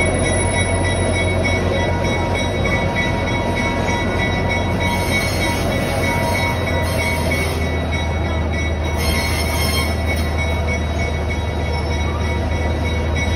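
Steady rumble of a train car rolling along the track, heard from on board, with short spells of added hiss about five and nine seconds in.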